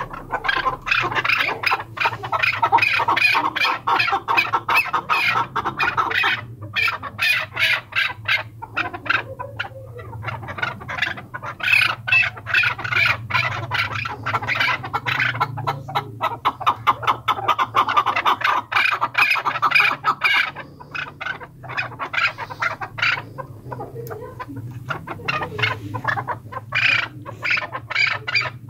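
Chukar partridge calling: a rapid, continuous run of clucking chuk notes that comes in long swelling bouts and grows weaker in the last several seconds.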